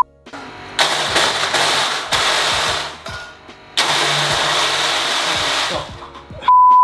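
Small electric blender run in two bursts of about two seconds each, trying to crush ice, which it fails to do. A short loud beep tone near the end.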